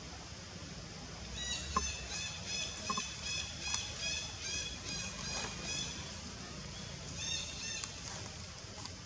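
An animal calling in a quick series of short, high, repeated notes, about three a second. The series runs for several seconds, breaks off, then comes again briefly near the end.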